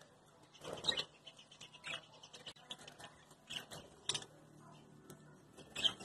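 Budgerigars chattering: a run of short, high chirps and clicks, with a few louder, sharper calls standing out.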